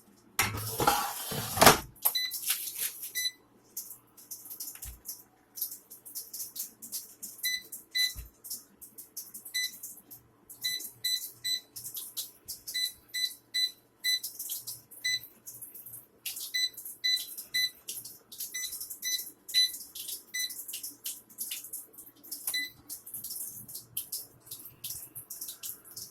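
Air fryer's control panel beeping over and over as its buttons are pressed: short high beeps, often in quick runs of two or three. Light crackling clicks and a faint low hum run under them, after a loud noisy rustle in the first two seconds.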